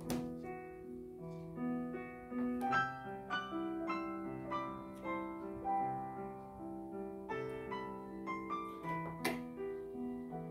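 Gentle background piano music, played as a melody of sustained notes. Two sharp clicks cut through it, one at the very start and one near the end.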